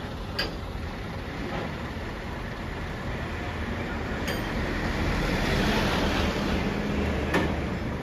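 Heavy-haulage truck and trailer's diesel engine running steadily with a low hum that grows louder around the middle, with a few sharp clicks.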